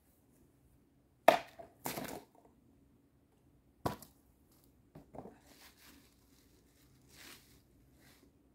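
A steel arming sword cutting through a liquid-filled plastic bottle: a sharp crack about a second in, the loudest sound, followed half a second later by a noisy splash and clatter. A second sharp strike comes near four seconds, then softer rustling of plastic being handled.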